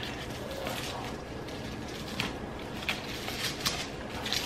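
Tissue-paper wrapping and a leather handbag being handled, giving a few short, sharp rustles and clicks over a steady low background.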